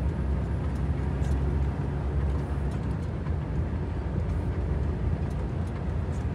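Volvo FH timber truck on the move: a steady low diesel engine and road rumble with faint scattered clicks and rattles.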